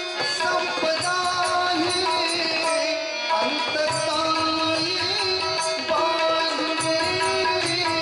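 Devotional bhajan music: tabla playing a steady rhythm under held harmonium notes, with a man's singing voice.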